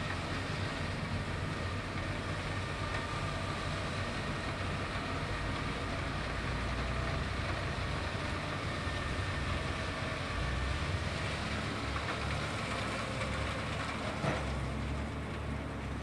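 Nichijo HTR202 rotary snowplow at work, its engine and rotary blower running steadily as it throws snow into a dump truck, with the truck's engine running alongside. A short knock about fourteen seconds in.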